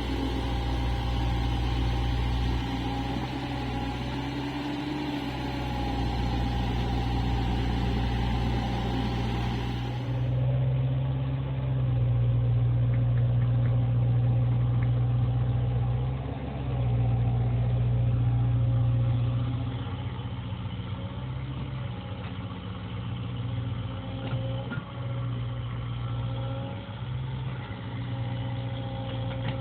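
Diesel engine of a CAT 305 mini excavator running steadily, growing louder for several seconds past the middle, with a few light knocks later on.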